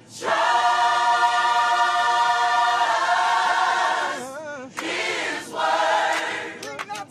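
Gospel choir singing a long held chord together, then after a short break two shorter chords. A few sharp claps come near the end.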